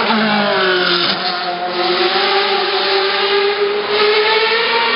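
Sports prototype race car at full throttle passing close by: its engine note drops sharply as it goes past, then holds a high, slowly rising pitch as it climbs away.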